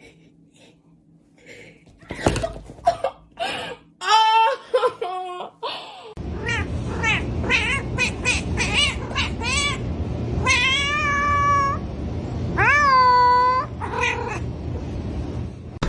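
Domestic cat meowing and yowling: a run of short calls, then two long drawn-out yowls near the end.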